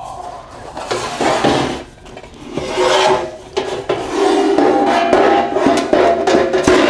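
Laser-cut sheet-steel parts scraping and rubbing against each other and the cardboard as they are lifted and shifted, with a few light knocks and some ringing from the steel.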